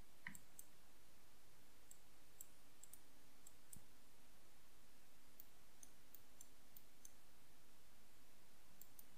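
Faint computer mouse clicks, short and irregular, over a faint steady hum.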